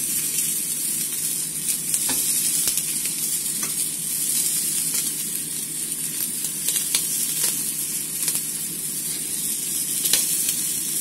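Oil-basted hen pieces sizzling in a very hot pan: a steady frying hiss with scattered sharp crackles and pops.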